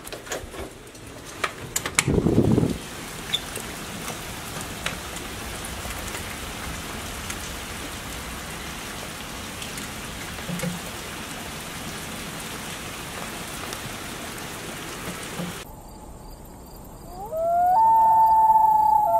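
A door latch clicks and a door is pushed open onto steady rain falling on the yard and pavement. The rain cuts off suddenly near the end, and a long wailing, howl-like call rises and holds, the loudest sound.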